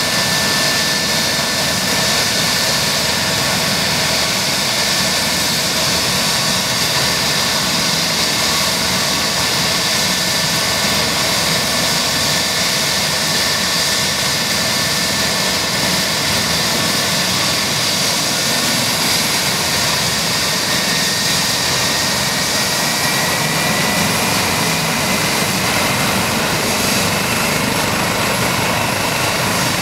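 Eurocopter EC135 P2 helicopter running steadily: the whine of its twin Pratt & Whitney Canada PW206B2 turboshaft engines over the rotor noise. In the second half a fainter whine slowly rises in pitch.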